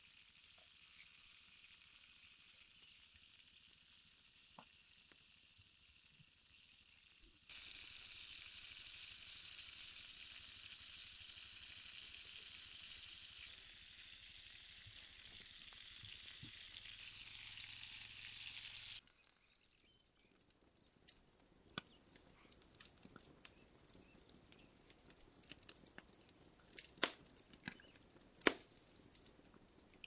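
Burger patties and then buns sizzling steadily in a hot cast iron skillet over a campfire; the sizzle grows louder about a third of the way in. The sizzling stops a little past halfway, and scattered sharp clicks and crackles follow, the loudest near the end.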